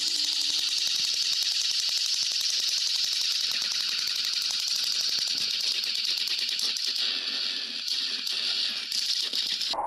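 Motorised plastic toy train locomotives running on plastic track: a steady, very fast clicking rattle of the small motor, gears and wheels. It cuts off suddenly near the end.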